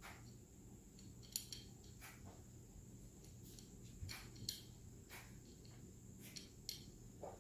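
Faint, scattered clicks and light rustles as the bottom fabric sling and its rod on a children's sling bookshelf are handled and adjusted, a handful of short snaps spread over several seconds against near silence.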